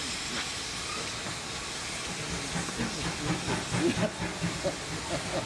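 GWR 2800-class 2-8-0 steam locomotive No. 2807 approaching with its train: a steady hiss of steam, then, from about halfway, a quick run of sharp knocks and beats as it draws closer.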